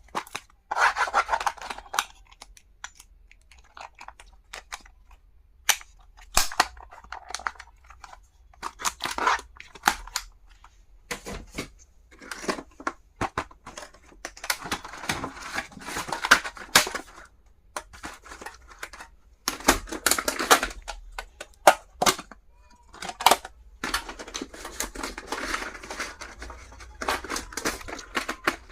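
Stationery packaging being unwrapped and handled: irregular bursts of rustling and tearing, mixed with sharp clicks and taps.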